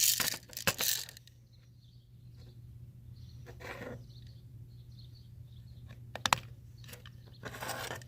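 Sharp clicks and light rattling from handling a BB gun and its BBs: a few clicks in the first second, a short rustle in the middle, and one loud sharp click a little past six seconds.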